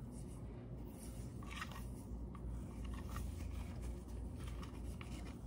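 A primer dauber wiping and dabbing wet primer onto a new PVC toilet flange, a few faint, short scratches over a low steady hum.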